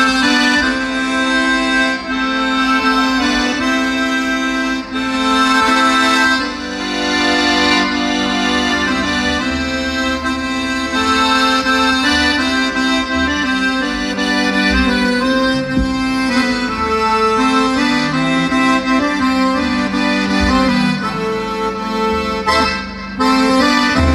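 Piano accordion playing a southern Italian folk tune: a melody over held bass and chord notes that change every second or so, with a brief drop in volume near the end.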